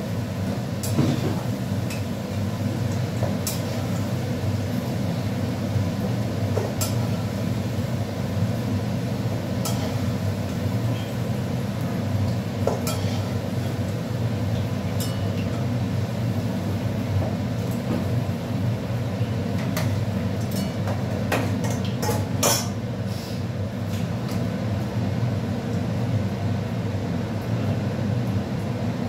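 Metal utensil clinking and scraping against a frying pan while potatoes are fried and lifted out, with a steady low hum underneath. The clinks come now and then, in a quick cluster a little over twenty seconds in.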